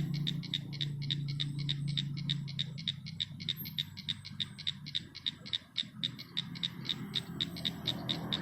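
A night-calling animal repeating a high, pulsed chirp very evenly, about five pulses a second. A low hum underneath fades away during the first few seconds.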